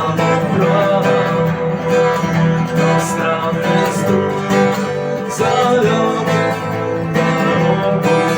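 Guitar strummed in a steady rhythm: an instrumental passage of a song cover with no singing.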